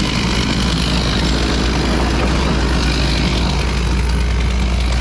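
Engine of a heavy machine running steadily: a constant low drone under an even noisy hiss.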